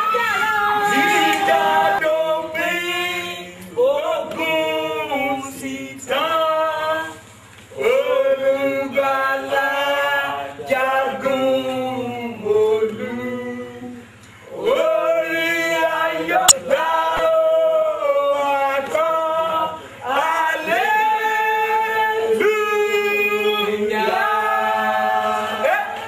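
A group of voices singing a gospel song in long sung phrases, with short pauses about seven and fourteen seconds in. A single sharp click sounds a little after halfway.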